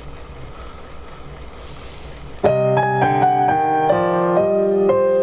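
Low background hiss, then recorded instrumental keyboard music starts abruptly about two and a half seconds in, with sustained notes and chords changing every half second or so.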